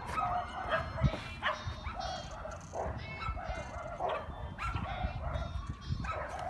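Dogs barking and yipping in repeated short calls, a few a second.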